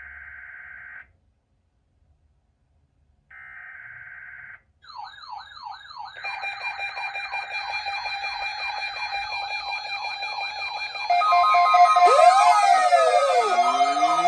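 Two short buzzing bursts of NOAA Weather Radio SAME header data, then a chorus of weather-radio alert alarms sounding together: warbling, siren-like sweeps and steady beeps that pile up and get louder about two-thirds of the way in. Near the end the broadcast alarm tone slides up and down erratically, garbled as the station malfunctions during the weekly test tones.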